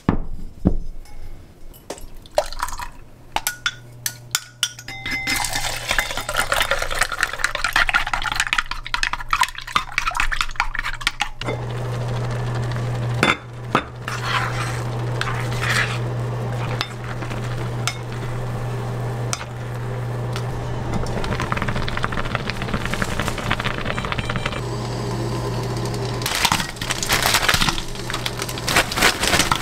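Earthenware pot set down on an induction hob with clinks, then a steady low hum from the hob as it heats, stronger from about eleven seconds in, while chopsticks clink and stir egg mixture in the pot. Near the end, pork belly slices drop into a frying pan with a plastic bag crinkling.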